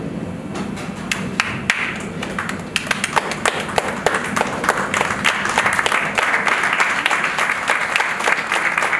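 Audience clapping: scattered separate claps at first, filling into steady applause after about two to three seconds.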